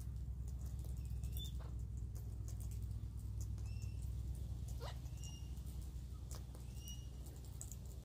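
Parrots feeding on the ground: scattered soft ticks and clicks of beaks pecking in the grass, with a few short whistled bird notes and one call sliding steeply down about five seconds in, over a steady low rumble.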